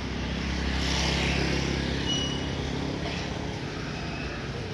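A motorcycle engine passing close by on the street, swelling to its loudest about a second in and then fading, over a steady background of street traffic.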